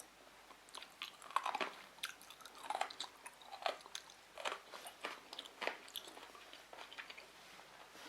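Close-miked chewing of sushi rolls: a run of irregular mouth clicks and smacks that starts about a second in and thins out near the end.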